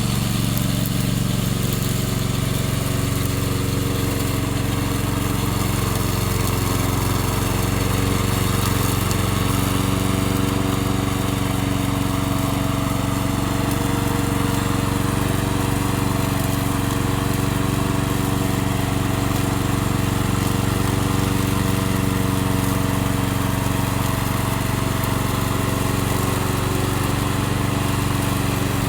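Gasoline engine of a remote-control slope mower running steadily.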